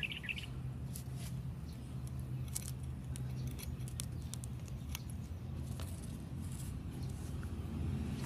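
Faint clicks and small scrapes of bare wire ends being pushed into the sockets of a plastic power strip, over a steady low hum.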